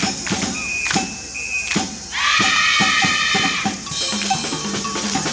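Junior high school wind band playing an upbeat pop-fusion tune: drum kit strokes, then a loud held chord from the saxophones and brass about two seconds in, followed by a bouncing bass line over the drums.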